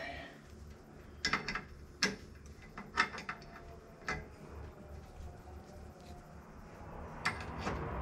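Hand tap being turned through a bicycle crank's threaded pedal hole, with a few sharp metal clicks and ticks, about one a second, as the tap wrench is worked back and forth.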